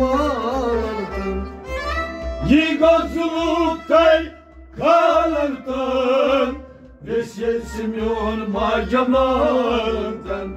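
Kashmiri folk music: a wavering melody in short phrases of a second or two, broken by brief pauses.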